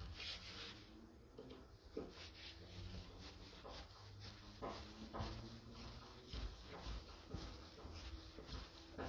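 Screws being driven by hand into a door handle's fixings: faint rubbing and clicking from the screwdriver, with a few short squeaky creaks as the screws tighten.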